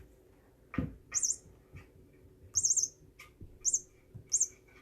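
Short, very high bird-like chirps, each rising and falling, repeated about four times at roughly one-second intervals. There is a dull thud about a second in.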